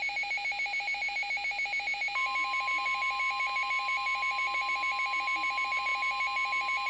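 Emergency alert tones: a rapid electronic beeping, about eight beeps a second, joined about two seconds in by a steady high tone, the kind of long warning tone that precedes a National Weather Service warning message.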